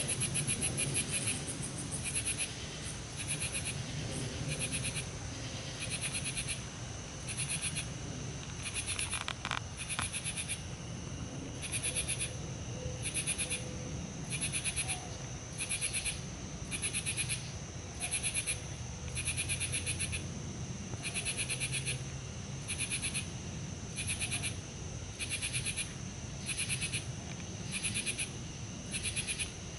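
Night-time chorus of calling animals: a rapidly pulsed, high-pitched call repeating about every one and a half seconds over a steady high trill, with a low steady rumble underneath.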